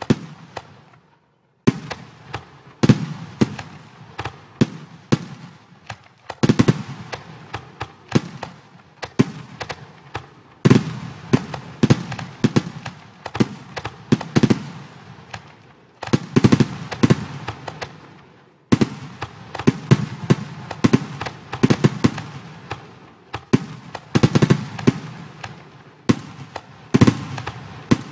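Fireworks bursts from a fireworks-display simulator program: a steady run of sharp bangs and crackles, several a second, with a short silent break about a second and a half in.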